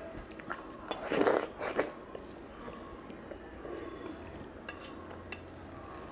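Close-up eating sounds: a loud wet mouth sound about a second in, then soft chewing, squelches and small clicks as fingers work curry and rice on a steel plate.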